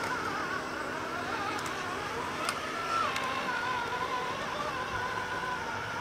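Electric drive motors and gearboxes of radio-controlled construction models whining as a model bulldozer and tipper truck work the soil. The whine wavers in pitch with throttle, steps up briefly and drops about three seconds in, and a few faint ticks come through.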